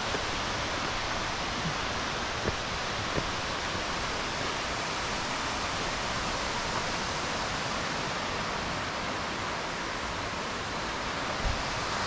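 Steady rushing of Karasawa Falls, a waterfall about 50 m high, carried through the forest. A few faint knocks sound over it, about two to three seconds in and again near the end.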